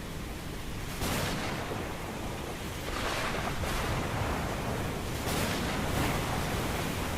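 Ocean surf: a steady rush of breaking waves, with waves surging and hissing about a second in, around three seconds, and twice more near the end.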